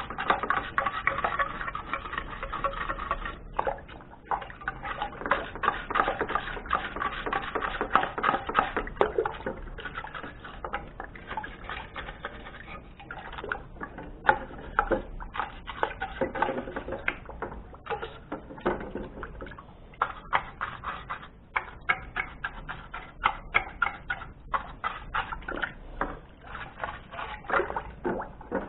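A stiff plastic-bristled brush scrubbing plastic juicer parts in a bucket of water, in rapid, irregular strokes, with water sloshing and dripping as the parts are moved.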